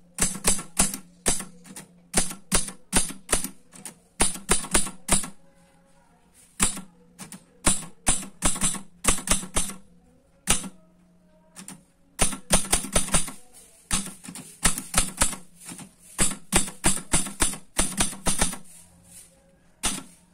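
Welco 280 De luxe, a Japanese-made all-metal portable manual typewriter, typing a line of text: sharp type-bar strikes in quick runs of several keys, with short pauses between words.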